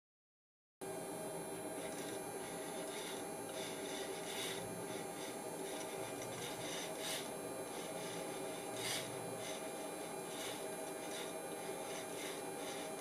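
After a brief silence at the start, a steady electrical hum made of several pitched tones from the powered MK.30C servo encoding altimeter. Over it come a few light scrapes and ticks as a pencil tip prods the altimeter's mechanism.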